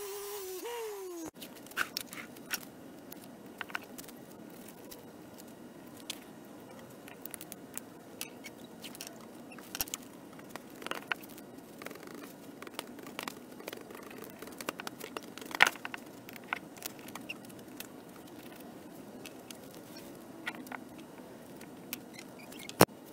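A small electric tool hums, its pitch wavering and dipping, and cuts off about a second in. After it come scattered light clicks, taps and scrapes of hand work, with a few sharper knocks.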